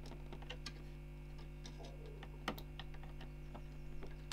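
Faint, scattered small clicks and taps of a fan cable's plastic connector being handled at a motherboard's CPU fan header, with one sharper click about two and a half seconds in, over a steady low hum.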